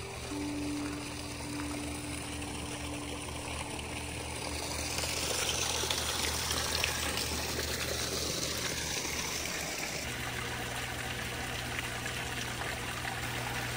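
Running water, a steady trickling hiss that swells about five seconds in and eases back about ten seconds in, over a steady low hum.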